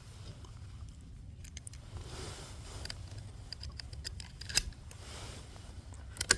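Metallic clicks and knocks from a Savage Mark II bolt-action .22 rifle being handled and worked, in small clusters. Two sharp knocks stand out as the loudest, about four and a half seconds in and again near the end.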